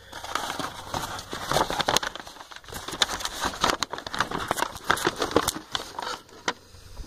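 Old paper and deteriorated packing material rustling and crinkling as it is handled in a box, with many irregular sharp clicks and scrapes.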